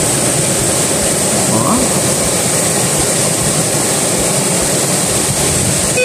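Steady rushing of a waterfall and stream, an even unbroken noise.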